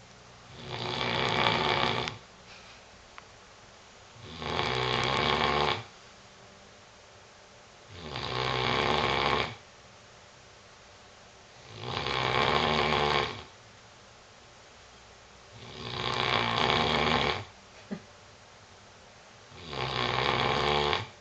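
English Mastiff snoring: six long snores about four seconds apart, each lasting about a second and a half.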